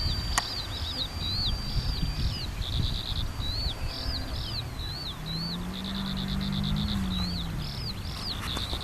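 A songbird sings continuously in quick repeated arching chirps and buzzy trills, over wind rumbling on the microphone. About five seconds in, a faint low engine hum rises slightly and then fades away.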